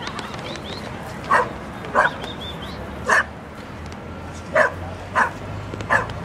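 A dog barking: six short, sharp barks spaced irregularly, about half a second to a second apart.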